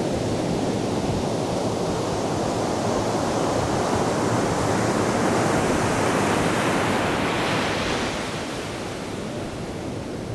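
Ocean surf breaking on a sandy beach and over rocks, a steady rushing wash that eases off slightly about eight seconds in.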